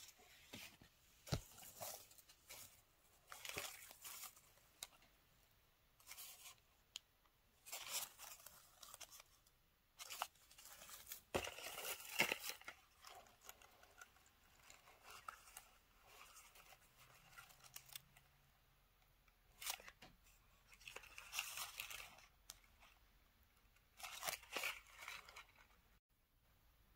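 Shredded paper gift-box filler rustling as hands dig through it and lift out small cardboard lipstick cartons. It comes in irregular bursts every few seconds, loudest about twelve seconds in, with a couple of sharp clicks.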